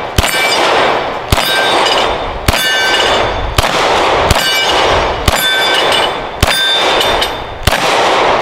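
Canik TP9SFx 9mm pistol firing eight slow, deliberate shots, about one a second. Most shots are followed by a ringing clang as the bullets strike steel popper targets, which are not falling over.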